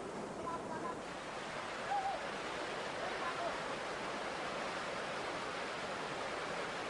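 Steady rush of a river's rapids, with a few faint short calls heard over it in the first few seconds.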